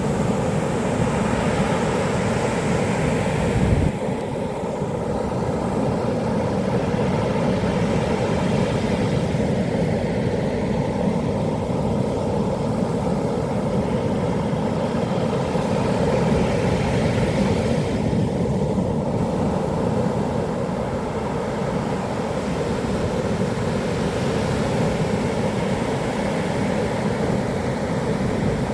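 Heavy surf driven by a typhoon, a steady deep roar of waves breaking along the beach.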